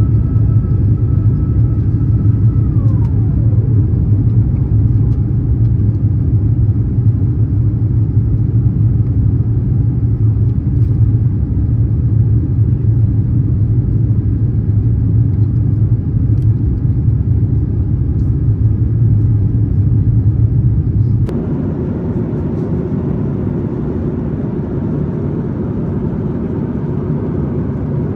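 Airliner cabin noise in an Airbus A350-900 during the climb: the Rolls-Royce Trent XWB engines and airflow give a steady, deep rumble, with a high whine that glides down in pitch about three seconds in. About 21 seconds in the sound cuts to a lighter, hissier cabin noise.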